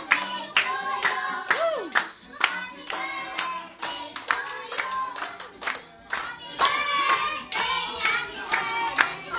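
A group of people singing a birthday song together and clapping along on a steady beat, about two claps a second.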